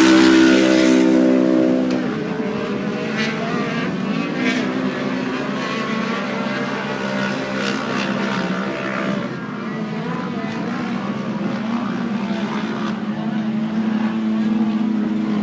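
Off-road race car engines revving, loudest in the first two seconds as a car passes and then falling away, under the steady hum of the drone's propellers recording overhead.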